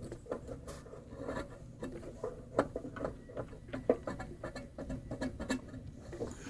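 Close handling noises: an irregular string of small clicks, taps and rubbing sounds, with a few sharper knocks around the middle.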